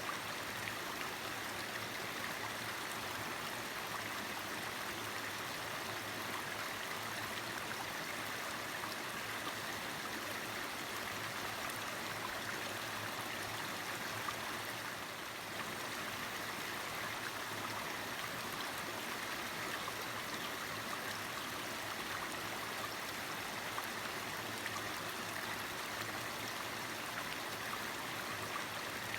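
Valley stream flowing: a steady, even rush of running water.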